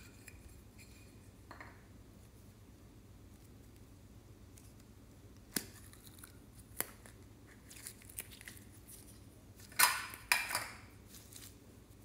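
Handling of a clear plastic slime container: a few sharp plastic clicks as the dome is opened, then two louder crackles close together near the end as the clear slime is worked out of it.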